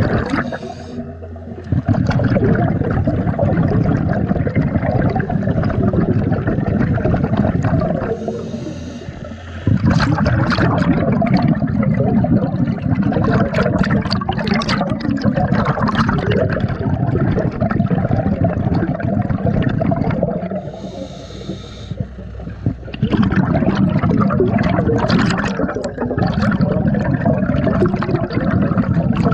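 Scuba diver's breathing heard underwater: long stretches of loud bubbling and rushing from exhaled air, broken about 1, 8 and 21 seconds in by short quieter spells carrying a higher hiss of breath drawn through the regulator.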